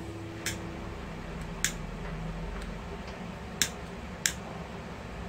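Sharp plastic clicks from a butane gas soldering pen being worked by hand: four distinct clicks at uneven intervals, with a couple of fainter ticks between them.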